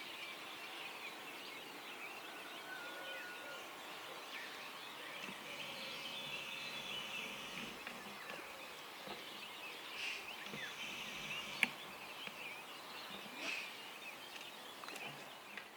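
Dawn chorus of many birds chirping and singing over one another, with a single sharp click about two-thirds of the way through.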